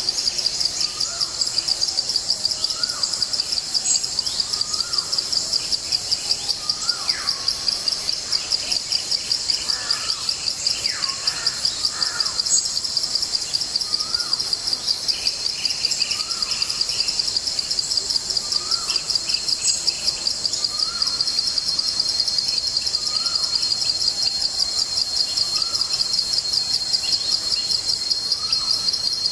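A loud, high, rapidly pulsing insect chorus drones on without a break. Over it a bird repeats a short call about every second and a half, with a few other bird notes now and then.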